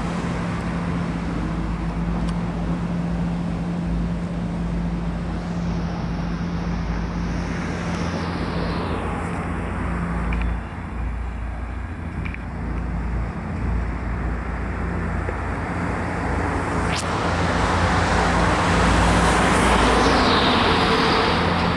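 Steady city traffic noise over a constant low hum. It swells for a few seconds near the end.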